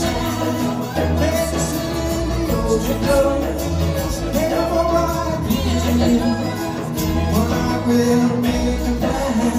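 Live band music from a drum kit, electric bass guitar and electric keyboard, with some singing.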